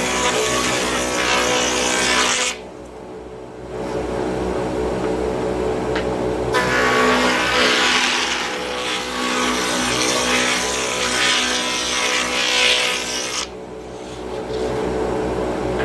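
Benchtop router table running with a steady motor whine while cutting wood, the loud cutting hiss breaking off twice for about a second, leaving only the motor running, then resuming.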